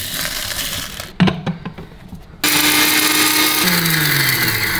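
A few clicks and rattles, then an electric mixer grinder switched on about halfway through, running loud and steady as it grinds dry-roasted whole spices (coriander seeds, dried red chillies, curry leaves) into masala powder. Its hum falls in pitch over the last second.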